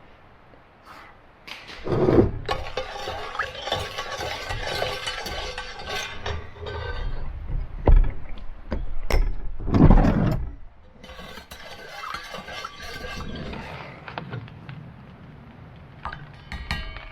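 Dishes, cookware and utensils clinking and scraping as they are handled, with many small knocks and a couple of louder clattering bursts.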